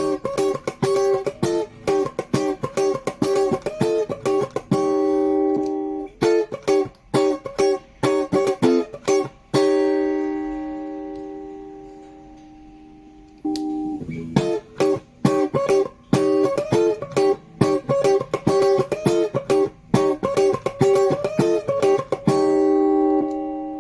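Electric guitar played through a Maxon CP-101 compressor pedal: quick picked note runs, broken by chords left to ring out. The longest ring comes about halfway through and fades over a few seconds.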